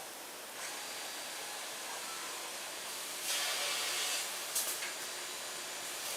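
SCM Startech CN Plus CNC boring machine working a wooden panel: a steady hiss, swelling into a louder hiss for about a second some three seconds in, followed by a couple of sharp clicks.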